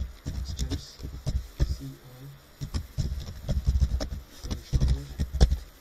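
Computer keyboard typing: irregular key clicks and dull thumps in quick runs, with short pauses between words.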